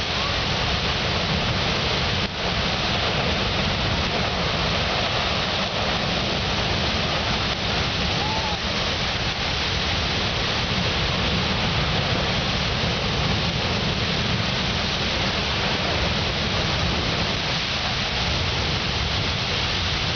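Fan and Mortar Geysers erupting: a steady rush of water and steam jetting from the vents.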